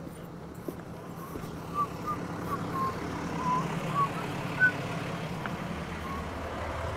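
A truck engine idling steadily in the background, with a few short high chirps over it about two to five seconds in.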